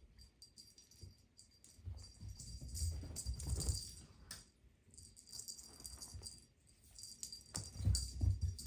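A cat toy jingling and rattling unevenly as kittens bat it around, with soft thumps, loudest about three seconds in and near the end.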